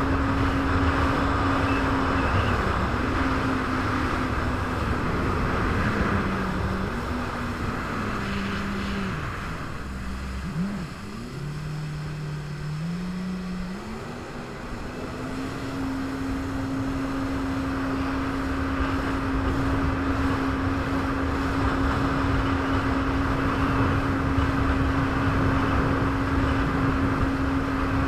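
Jet ski engine running under throttle over rushing wind and water noise. About six seconds in the engine note falls as the throttle is eased and stays low for several seconds, then climbs back up and holds steady from about fifteen seconds on.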